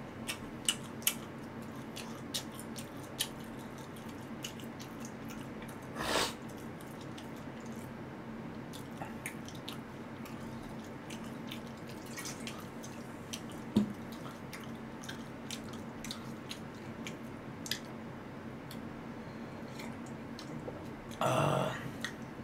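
Mukbang eating sounds: chewing and small clicks of chopsticks and dishes over a low steady hum, with a drink poured from a plastic bottle into a metal bowl partway through. A short rush of noise comes about six seconds in and again near the end.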